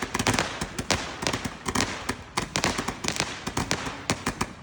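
Small firecrackers going off in a rapid, irregular string of sharp pops and crackles.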